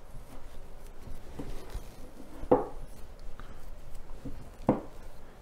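Sticky rye-flour sourdough dough being folded and pressed on the counter by hand: soft squelchy slaps and rubbing, with a spongy sound as the gassy dough deflates. There are a few slaps, the loudest about halfway through.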